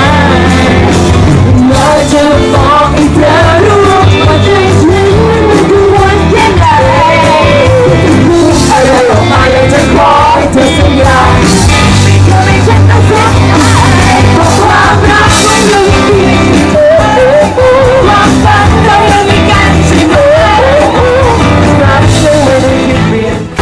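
Live band playing a pop-rock song loudly through a PA: singers on handheld microphones over electric and acoustic guitars and a drum kit.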